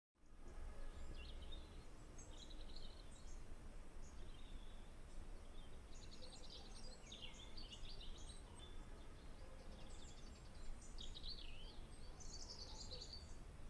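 Faint songbirds chirping in short, repeated phrases over a low, steady background rumble.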